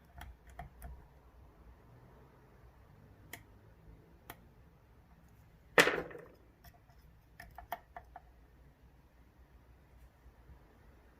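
Small metallic clicks of a dimple pick and tension tool working the pins of an Ezcurra DS10 dimple euro cylinder, with one sharp, much louder click about six seconds in that rings on briefly, then a few more light clicks.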